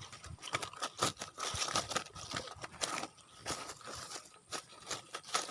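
Irregular rustling and crackling close to the microphone, the handling noise of landing a freshly caught snakehead.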